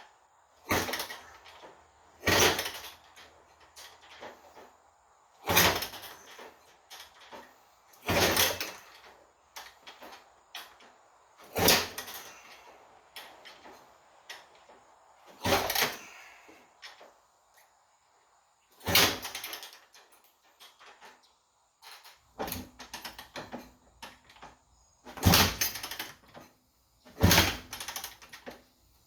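1987 Kawasaki KX250 two-stroke being kicked over again and again: about ten short bursts of noise a few seconds apart. The engine does not fire and settle into running, because it is hard-starting.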